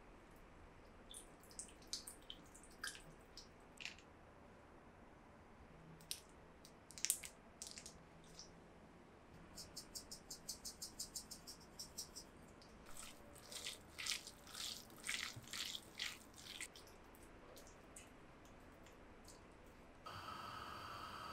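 Water dripping from grated lotus root squeezed by hand over a glass bowl, then a salt grinder's fast, even clicking and a utensil clinking in the bowl. About a second before the end, hot frying oil starts a steady sizzle around chopsticks dipped in to test its temperature.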